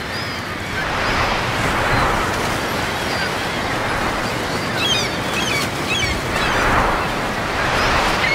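Surf washing onto a beach, swelling twice, with a cluster of short high squeaks about five seconds in.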